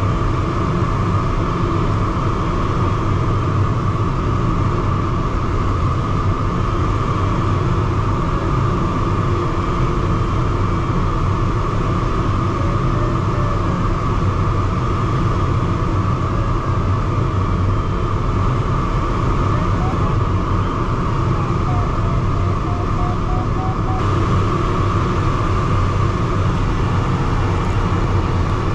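Steady rush of air past the cockpit of a DG-303 glider in flight, an even noise with a deep rumble underneath.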